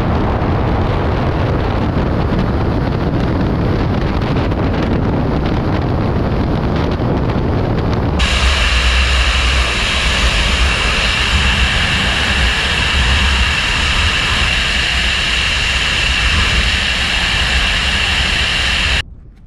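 Loud, steady rush of airflow over the microphone of a wingsuit pilot's camera in flight. About eight seconds in it changes abruptly to a brighter rush with a steady high whine over a deep rumble.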